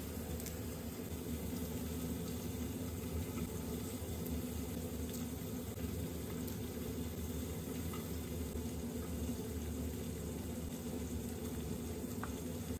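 Salmon frying in a pan in a little olive oil: a steady sizzle, with a few faint ticks.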